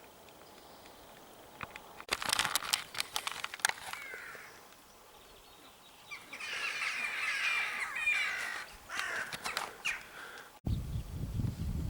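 A flock of western jackdaws calling, short sharp calls in a burst about two seconds in and then a denser overlapping chatter in the middle. Near the end the calls give way suddenly to a low rumble.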